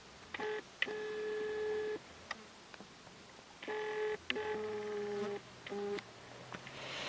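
Mosquitoes whining close by, a steady thin hum that comes and goes in several passes, the longest about a second, with a few faint clicks between them.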